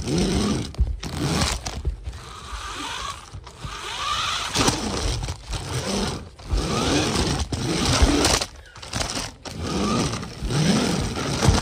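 A child imitating a car engine with the voice, vroom sounds that swoop up and down in pitch in repeated bursts, with scraping handling noise as the phone is swung around.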